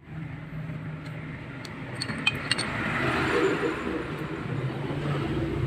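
Sanding machine's motor running with a steady hum and a noisy hiss that swells in the middle. A few light metallic clinks come about two seconds in.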